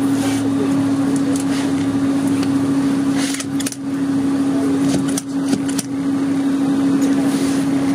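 Idling vehicle engine: a steady hum with one constant droning tone. A few short clicks come about halfway through.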